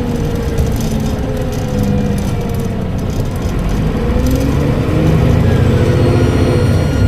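Transbus Trident double-decker bus's diesel engine pulling, its note rising from about four seconds in as it accelerates, with a high turbocharger whistle coming in over it near the end.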